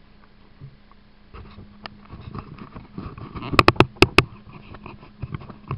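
Knocks and rattles picked up by an action camcorder riding on a radio-controlled truck, with a quick run of sharp, loud knocks about three and a half seconds in, over a steady low hum.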